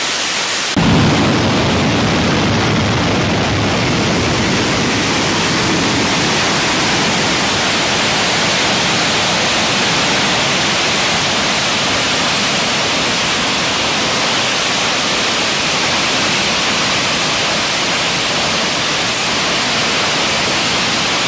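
Rolls-Royce Marine Spey gas turbine running on a test stand: a loud, even rushing noise with no distinct tones. About a second in it suddenly becomes fuller and deeper, then holds steady.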